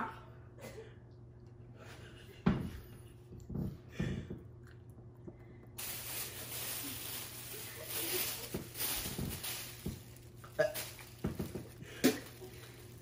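Thin plastic carry-out bag rustling and crinkling as it is handled and shaken open, from about six seconds in. Before that, a few short knocks.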